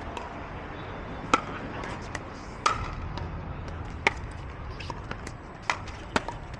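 Pickleball rally: sharp pops of paddles striking a hard plastic pickleball, five loud hits about one to one and a half seconds apart, with fainter pops between them.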